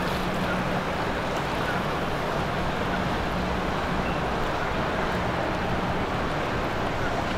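Vanquish VQ48 DC motorboat's engine running with a steady low hum as the boat cruises slowly past, over water wash and wind on the microphone.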